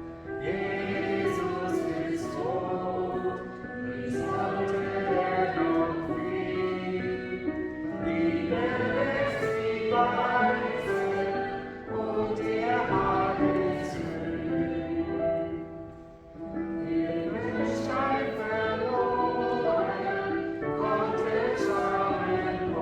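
Choir singing a slow hymn, held notes sung in phrases with a short breath between lines about every four seconds.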